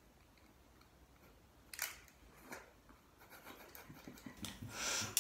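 Thin plastic film wrapper crinkling in the hand: a brief crackle about two seconds in, then a longer, louder run of crinkling near the end.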